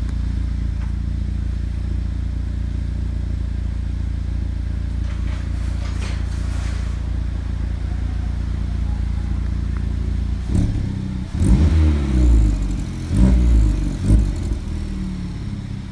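Honda Civic Type R (FK8) 2.0-litre turbocharged four-cylinder idling steadily through an Invidia Q300 cat-back exhaust and front pipe. About ten seconds in the throttle is tapped, giving a series of short revs that rise and fall in pitch, roughly one a second.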